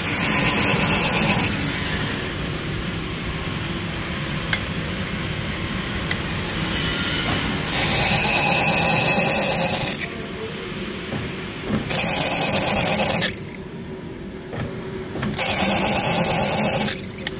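Drill press boring holes through a stainless steel square bar: the motor runs steadily, and four times the bit cuts into the steel with a shrill, high-pitched cutting sound lasting one to two seconds each.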